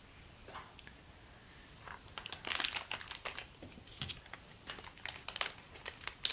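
Thin plastic blind bag crinkling and tearing as it is opened, a quick run of sharp crackles starting about two seconds in.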